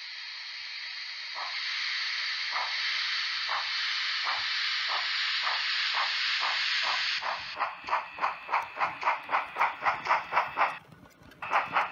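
Sound module of a Märklin H0 model steam locomotive pulling away: a steady steam hiss, then chuffs that start slowly and quicken to about three or four a second as the hiss falls away. The chuffing breaks off briefly just before the end and resumes.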